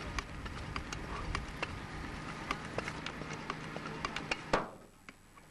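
Hydraulic rescue cutter and its power unit running steadily, with scattered sharp clicks as the blades bite into a car's roof pillar. About four and a half seconds in comes one loud crack, and the running sound drops away suddenly.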